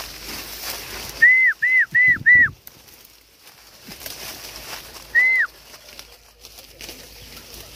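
Five short, loud whistled notes, each rising then sliding down in pitch: four in quick succession about a second in, then one more about three seconds later.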